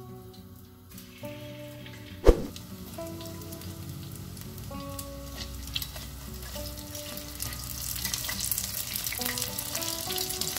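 Milk-and-egg-soaked bread slices (rabanadas) frying in hot oil in a stainless steel pot, sizzling and crackling from about a second in and growing louder toward the end. A single sharp knock a little over two seconds in; soft background music throughout.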